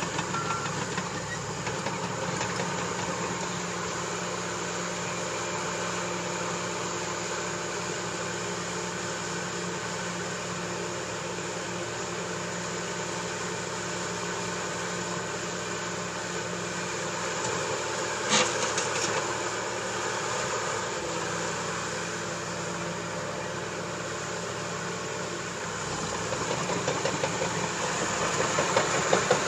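Caterpillar D4H bulldozer's diesel engine running steadily, with one sharp knock about two-thirds of the way through, growing louder near the end.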